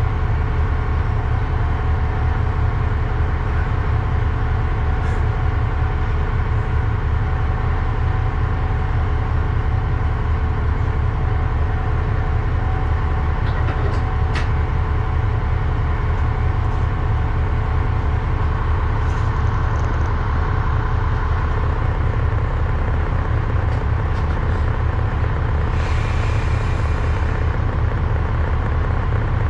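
Diesel railcar's engine idling steadily while the car stands at the platform, a constant low rumble with a few faint clicks and a brief hiss near the end.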